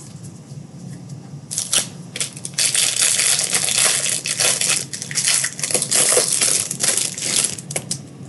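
Plastic trading-card pack wrapper crinkling and crackling as it is handled and opened. It starts about a second and a half in and stops near the end.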